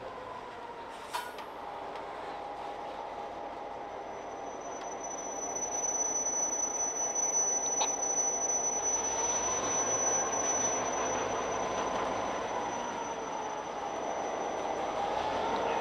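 Gondola freight cars rolling slowly on yard track, their wheels squealing against the rails: wavering mid-pitched squeals throughout, joined about five seconds in by a steady high squeal as the sound grows louder. Two sharp metallic clicks, one near the start and one midway.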